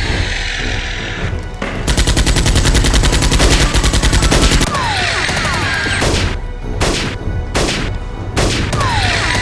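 Gunfire sound effect: a rapid automatic burst lasting nearly three seconds, then several single shots spaced apart.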